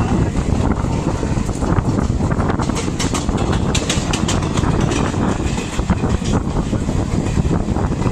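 Passenger train running at speed: a steady rumble of steel wheels on the rails with rushing air, and a run of sharp clatter, typical of wheels crossing rail joints, between about two and a half and four and a half seconds in.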